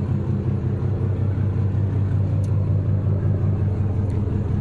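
A tour jet boat's engine running with a steady, deep rumble.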